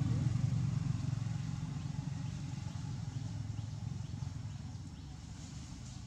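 A motor engine running with a steady low rumble, slowly fading.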